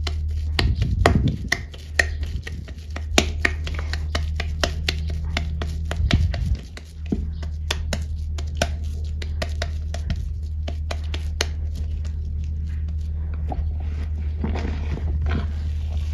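Hands squeezing and packing damp, water-crumbled chalk into balls: dense crisp crackling and crunching, with two heavier low thumps about one and six seconds in, over a steady low hum.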